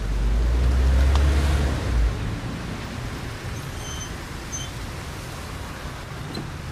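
Car engine and tyres as a car drives by on the street, a low rumble that swells and fades over the first two seconds, leaving a steady low hum of traffic noise.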